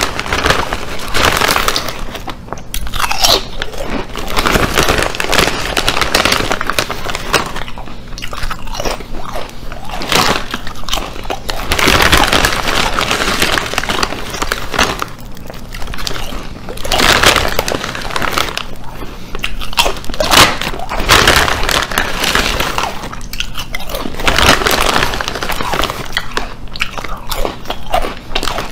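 Potato chips being bitten and chewed, a loud, continuous run of crisp crunches one mouthful after another.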